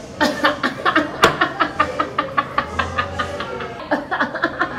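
A woman laughing hard: a long run of quick 'ha' pulses, about four or five a second, going on without a break.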